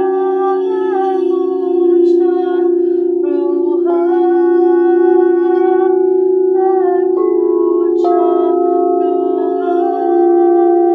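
Sound-healing music: a steady, loud drone of singing bowls, with higher sustained tones above it that step to a new pitch every second or two.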